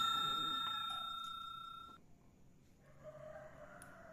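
Ringing tail of a bell-chime sound effect from a subscribe-button animation, a bright ring with several steady pitches fading out about two seconds in. A faint, soft sound follows near the end.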